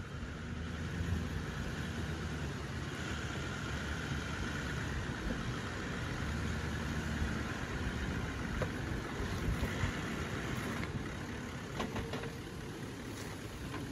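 A Toyota LandCruiser 70-series running steadily at low revs as the four-wheel drive crawls over a rocky track. A few faint knocks come in the second half.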